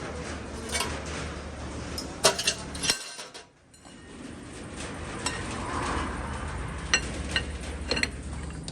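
Metal parts clinking and knocking against each other over a steady low machine hum. The sound briefly cuts out about three seconds in.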